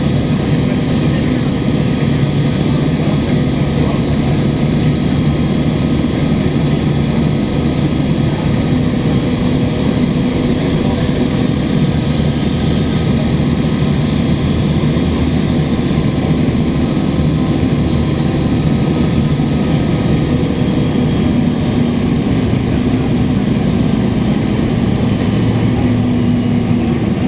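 Cummins ISL inline-six diesel of a Gillig Phantom transit bus running under way, heard from inside the bus, with an exhaust leak in its note and the air conditioning blowing steadily underneath. The engine pitch shifts slightly a couple of times as the bus changes speed.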